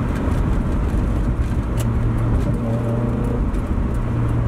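Mazda NA Miata's engine and road noise heard from inside the cabin while driving: a steady low drone.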